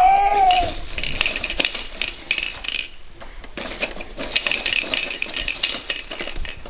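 Rapid plastic clicking and clattering as a baby's hands slap and work the dashboard and round panel of a plastic ride-on toy car, pausing briefly about halfway through. A short falling squeal comes at the very start.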